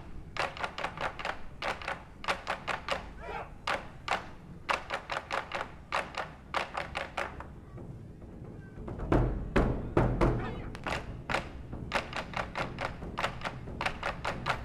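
Taiko drums played in a fast rhythm: groups of sharp, dry clicking strikes. Deep drum booms join about nine seconds in.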